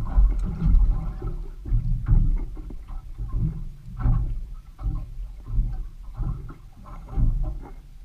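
Small waves slapping and gurgling against the hull of a drifting fishing boat, in uneven surges about once or twice a second.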